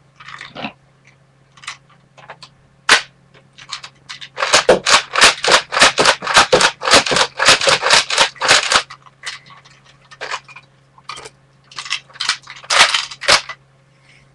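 Nerf Raider pump-action dart blaster being pumped and fired in a quick run of sharp clacks, several a second, for about five seconds, with scattered single clicks before and a short cluster near the end.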